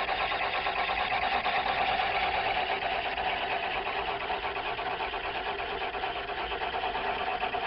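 Metal lathe running steadily, its motor and gearing giving an even whine with a fast flutter.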